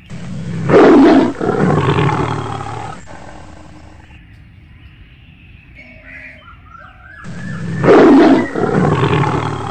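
Tiger roaring twice, each a loud, low roar lasting a few seconds; the second begins about seven seconds in.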